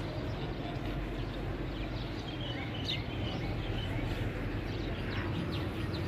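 Steady low background hum of a cattle market shed, with small birds chirping a few times around the middle.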